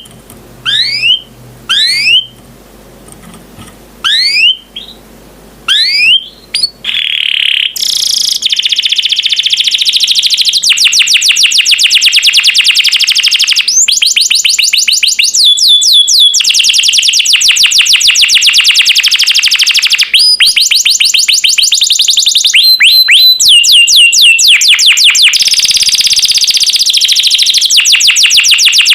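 Domestic canary singing: a few separate rising whistled notes about a second apart, then from about eight seconds in a loud, unbroken song of rapid high trills and rolls that changes pattern every few seconds.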